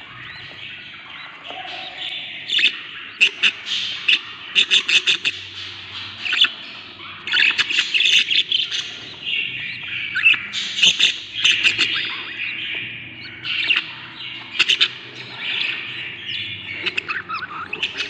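Budgerigar chicks about 16 days old, chattering and squawking for food. Their raspy begging calls come in rapid pulsed bursts and are busiest around the middle.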